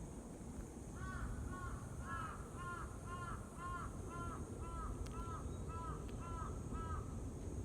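A crow cawing over and over, about a dozen short caws at an even pace of roughly two a second.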